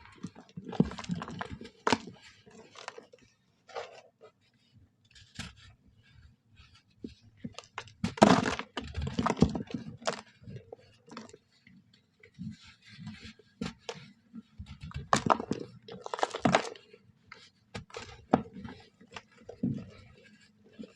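Soft brown sand crunching and crumbling in irregular crackly bursts, loudest about eight to ten seconds in and again around fifteen to seventeen seconds in.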